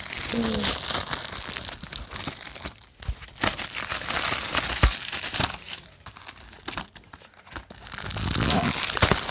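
Plastic shrink-wrap on a Blu-ray case crinkling and tearing as it is pulled off by hand, in spells, with a short pause about three seconds in and a longer lull between about six and eight seconds.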